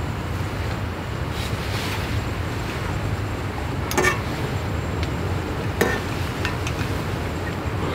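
Pot of hot pot broth simmering on a burner, a steady low rumble, with two sharp clinks of utensils against the pot about four and six seconds in.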